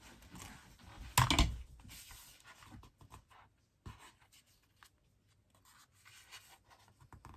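Paper and cardstock being handled on a desk: soft rustling, scraping and small clicks as craft panels are moved and pressed into place, with one brief louder burst of noise about a second in.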